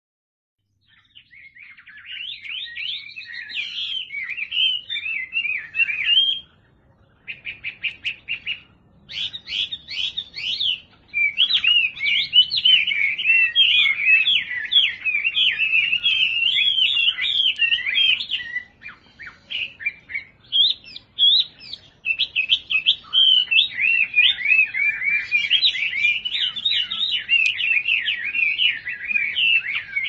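Caged Chinese hwamei (Garrulax canorus) singing a long, varied song of quick whistled phrases. After a short pause about six seconds in comes a fast run of repeated notes, and later there are a couple of brief breaks before the singing goes on.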